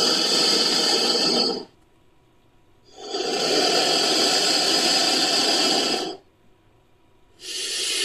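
Fan-made creature sound effect for an imaginary serpent, built from edited animal and monster sounds: long hisses with no clear pitch. One ends about one and a half seconds in, another runs from about three to six seconds, and a third starts near the end.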